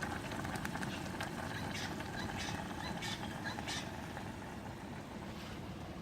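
Steady rumble of wind and surf, with a scatter of short sharp clicks over the first four seconds.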